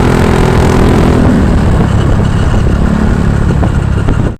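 Loud, steady motor vehicle engine and road noise that cuts off abruptly near the end.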